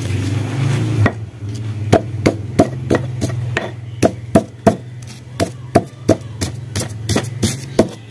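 Stone pestle pounding garlic cloves and salt in a stone mortar (ulekan and cobek): a run of sharp stone-on-stone knocks, about three a second, starting about a second in.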